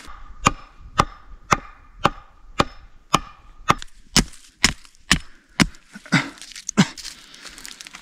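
Hatchet chopping into a wooden pole, a steady run of about a dozen sharp blows at roughly two a second, stopping about seven seconds in.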